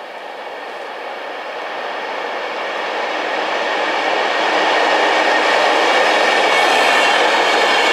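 Virgin Trains Class 390 Pendolino electric train approaching and running past along the platform. Its wheel and running noise grows steadily louder over the first five seconds, then holds steady as the train passes close by.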